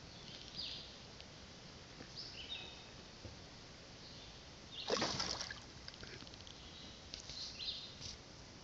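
A brief splash and slosh of pool water about five seconds in, as a cat pushes off a floating foam pool mat to leap onto the pool's edge. Birds chirp now and then in the background.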